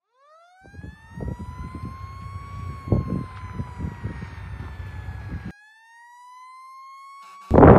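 Fire truck siren wailing: it winds up in pitch and holds, over wind rumbling on the microphone. About five and a half seconds in it breaks off and at once winds up again, and a loud burst of noise comes in near the end.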